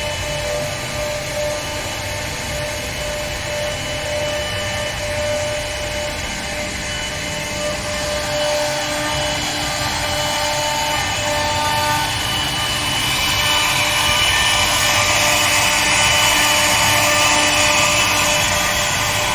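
CNC router spindle cutting wood: a steady high whine over rasping cutting noise that grows louder and harsher about two-thirds of the way through, as the bit takes a heavier cut.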